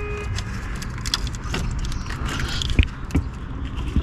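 Scattered light clicks and clinks of plastic and metal parts being handled in an engine bay, over a steady low hum, as the radiator fan's wiring connector is worked loose.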